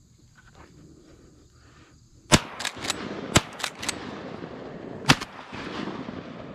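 A volley of shotgun shots at passing doves: about two seconds in, a rapid string of sharp reports, three loud ones roughly a second apart with fainter shots between them.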